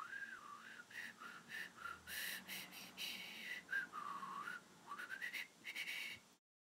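A person whistling a tune in a string of gliding, wavering notes, cutting off abruptly near the end.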